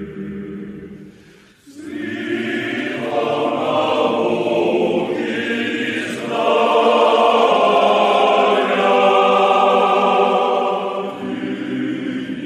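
Choir singing in a slow, chant-like style. A short break about one and a half seconds in, then a new phrase in higher voices that swells louder in the middle and eases off near the end.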